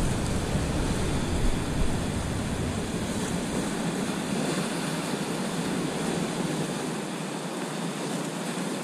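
Ocean surf breaking and washing over shoreline rocks, a steady rush of water. A low wind rumble on the microphone fades out a few seconds in.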